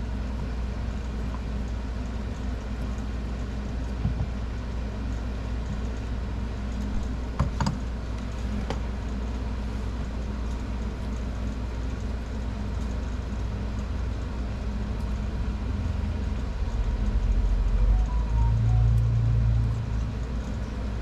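A steady low background hum, with a few light clicks and taps from handling the pistons and engine parts. A louder low rumble swells for a few seconds near the end.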